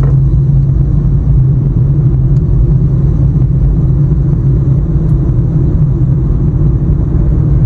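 Steady low rumble of a car driving at speed on a highway, heard from inside the cabin: engine and tyre noise with no break or change.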